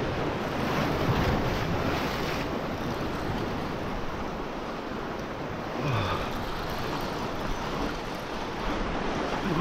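Sea surf washing and breaking over shore rocks, with wind buffeting the microphone.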